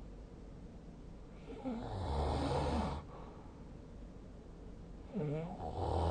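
A sleeping person snoring twice, about four seconds apart. Each snore opens with a brief wavering higher tone and settles into a low buzz lasting about a second.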